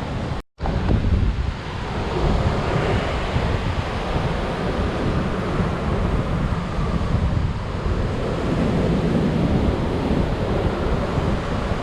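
High surf breaking on a sandy beach in strong wind, with wind buffeting the microphone in a steady low rumble. The sound cuts out to silence for a split second about half a second in.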